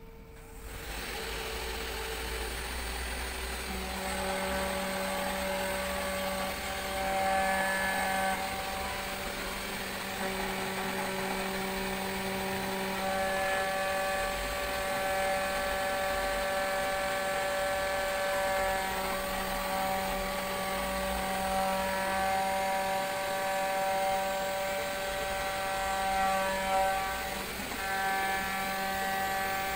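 CNC spindle turning at about 11,000 rpm, its three-flute end mill milling clear acrylic: a steady high whine with several pitched tones. The cutting tones set in about four seconds in and drop out and return a few times as the cutter moves between passes.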